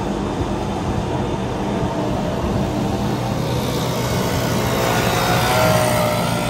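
Electric rack-railway train of the Lauterbrunnen–Wengen line running uphill, heard from inside the carriage: a steady traction-motor hum and running noise. About four seconds in, a higher whine rises and falls over it.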